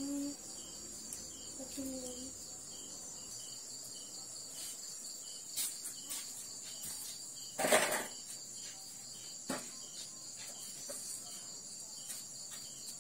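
Crickets chirping steadily, a constant high trill with a faint regular pulse. A few knocks of metal cookware being handled cut through it, the loudest about eight seconds in.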